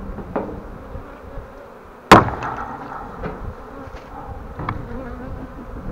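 Honeybee swarm buzzing, with one sharp, loud knock about two seconds in and a few fainter clicks.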